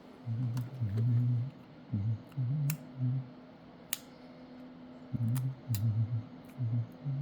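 A few sharp, light clicks from small tools and phone parts being handled during disassembly, over a run of low, uneven pulsing thumps.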